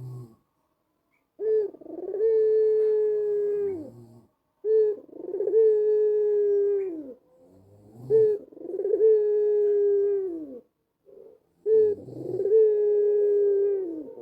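White Barbary dove (puter putih kalung hitam) cooing: four drawn-out coos, each a short lead-in note followed by a long steady tone that falls away at its end.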